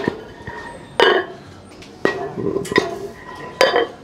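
Steel gym weights clanking: five sharp metallic strikes about a second apart, each with a short ringing tone.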